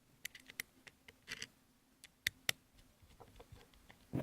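Screwdriver turning the cover screws into a plastic three-pin plug: a scatter of small irregular clicks and ticks, with two sharper clicks a little past two seconds in.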